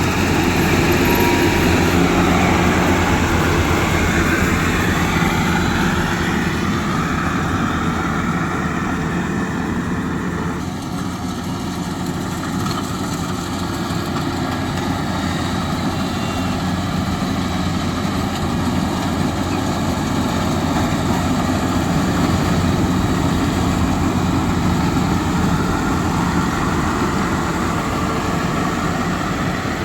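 Heavy farm machinery engine running steadily, its tone shifting slightly about ten seconds in.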